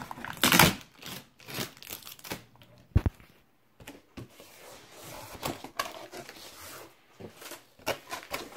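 Packaging being handled during an unboxing: cardboard and plastic rustling, crinkling and tearing in short bursts, with a loud rustle about half a second in and a dull thump about three seconds in.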